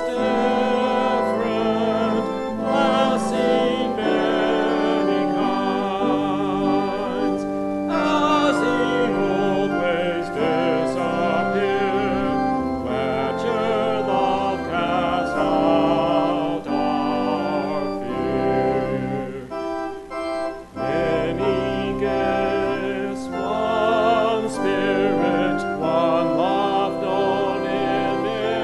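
Congregation singing a hymn with church organ accompaniment, the organ's notes held steady under the voices. The sound dips briefly about twenty seconds in, between lines.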